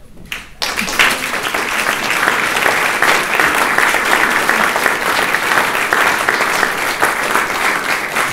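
Audience applause, breaking out suddenly about half a second in and carrying on steadily as a dense patter of many hands clapping.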